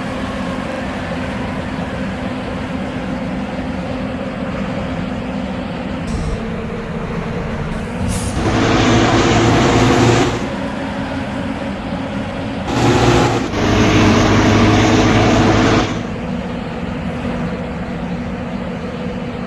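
Bus engine and traffic running steadily, broken by two loud blasts of a multi-tone air horn: one about two seconds long some eight seconds in, and a second about three seconds long near thirteen seconds, with a brief stutter at its start.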